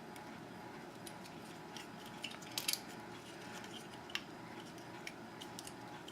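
Light clicks and taps of an Ethernet shield being handled and pressed onto a FEZ Panda board's soldered header pins. A cluster of sharper clicks comes about two and a half seconds in and a single one near four seconds, over a steady low hiss.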